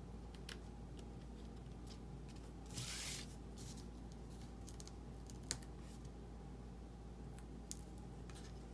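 Faint handling sounds of paper crafting. Cardstock rustles briefly about three seconds in, and there are a few light, sharp clicks and taps; the sharpest comes a little past halfway.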